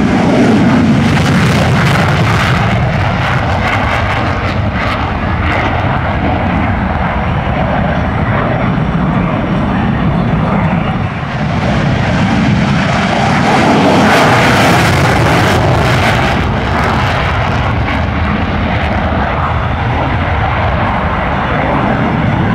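F-16 Fighting Falcon (Block 52, Pratt & Whitney F100 turbofan) taking off and climbing away in afterburner: a loud, continuous rush of jet noise that swells a little over halfway through as the jet passes.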